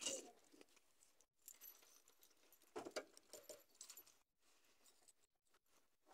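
Faint metallic clinks and jingling of a leather dog collar's chain and buckles being handled, in two short clusters: one at the start and one about three seconds in, followed by a few light ticks.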